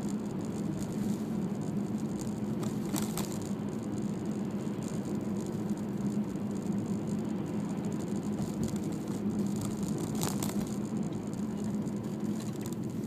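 Car on the move: steady low road and engine noise, with a short rattle about three seconds in and another about ten seconds in.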